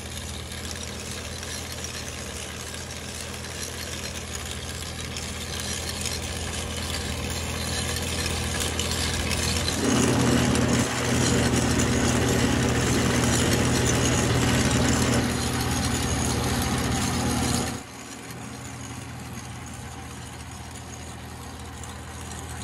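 Tractor's diesel engine running steadily under load while driving a chain trencher through soil. It grows louder about halfway through and drops back suddenly a few seconds before the end.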